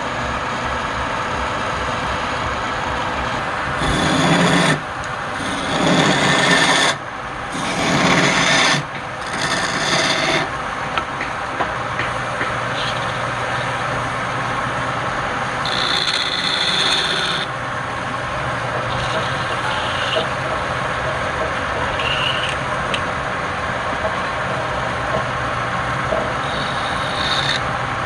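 Wood lathe running steadily with a motor hum while a tool is pressed against the spinning palm wood, cutting in three loud passes between about four and nine seconds in and once more briefly around sixteen seconds.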